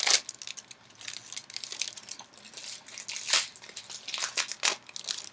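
Foil Yu-Gi-Oh booster pack wrapper crinkling and tearing in the hands, with cards being handled: irregular crackles, louder ones right at the start, about three seconds in and near the end.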